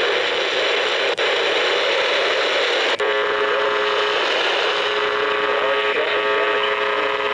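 Weather radio reception buried in heavy static hiss, with brief dropouts about one and three seconds in. After the second dropout, a set of steady buzzing tones joins the static and holds.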